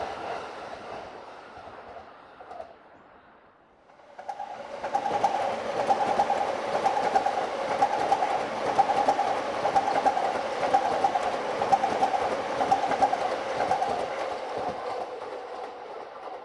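A train's running sound fades away, and about four seconds in a JR Sobu Line electric commuter train comes past close by. It passes with a steady tone and quick clicking of its wheels on the rails, then fades off near the end.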